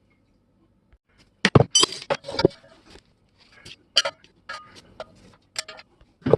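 Hard metal pieces clinking and knocking together as they are handled, starting about a second and a half in as an irregular run of sharp strikes, a few leaving a short ring.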